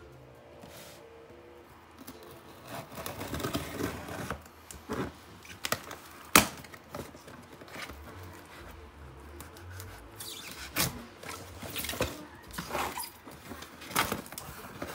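A taped cardboard shipping box being handled and opened by hand: scattered scrapes, taps and knocks on the cardboard, with a sharp click about six seconds in.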